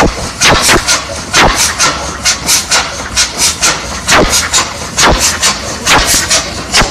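Old engine running with loud, sharp exhaust bangs at an irregular beat of roughly two a second, over a low steady rumble.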